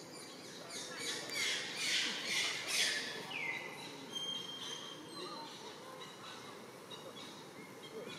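A quick run of about five harsh, squawking animal calls, loudest about two seconds in, the last one sliding down in pitch; a short thin whistle follows about four seconds in.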